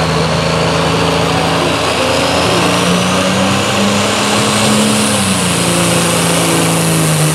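A 1976 Mack semi's diesel engine runs hard under full load, pulling a sled. Its pitch holds steady, rises a little around the middle, then settles back.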